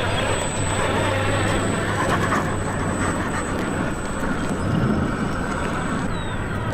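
Radio-controlled truck running: a steady mix of electric motor and tyre noise.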